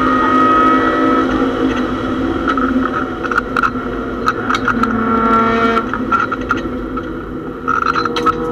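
Mazda MX-6 race car's engine running hard, heard from inside the stripped, caged cabin. Its pitch steps down about a second in and again near six seconds. Sharp clicks and knocks come through from about halfway, most thickly near the end.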